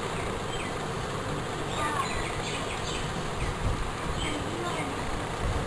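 Steady buzzing background noise, as from a fan or mains hum, with a few faint higher wavering sounds about two to three seconds in.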